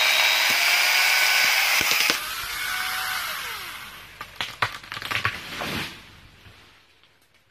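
Electric angle grinder fitted with a chainsaw attachment, whining steadily as it cuts through a mango trunk. About two seconds in, the sound changes abruptly and the motor's pitch drops as it winds down. From about four and a half to six seconds comes a run of sharp cracks and crashes as the cut tree falls through branches to the ground.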